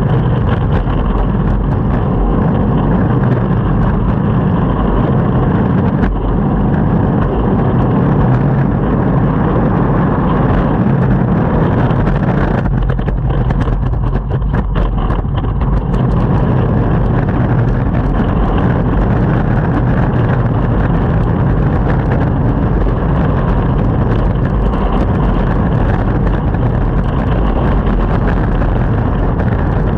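Longboard wheels rolling over pavement: a loud, steady rumble with wind on the microphone. The rumble thins for a few seconds about halfway through.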